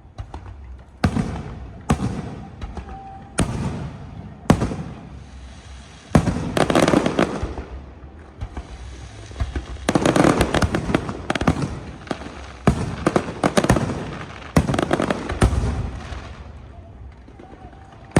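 Fireworks going off: a string of sharp bangs every second or so, several of them followed by about a second of dense crackling.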